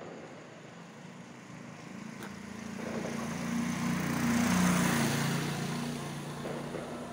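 A motor vehicle passing by on the street: its engine and road noise swell to a peak about four and a half seconds in, then fade, the engine tone dropping slightly in pitch as it goes past.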